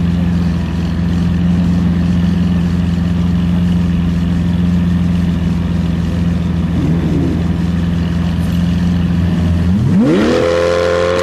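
Lamborghini Aventador Roadster and Porsche 918 Spyder engines holding steady revs on the start line, with a brief rev about seven seconds in, then engine speed climbing sharply near the end as the cars launch at full throttle.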